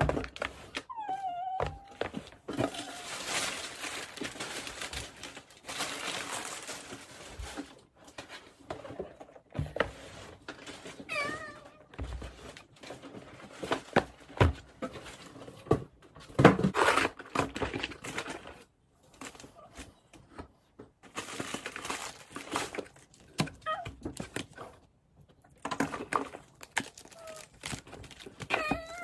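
Cardboard boxes being lifted out of a shipping carton and set down on a table: rustling and scraping of cardboard, with knocks and thumps as boxes land. A toddler makes short vocal sounds a few times.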